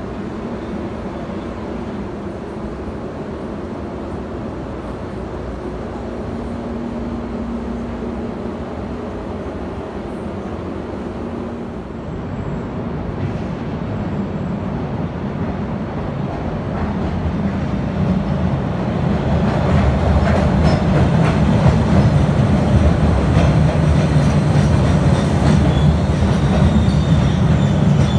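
MBTA Red Line subway train moving through the underground station: a low rumble that grows steadily louder over the second half, with a faint wheel squeal near the end.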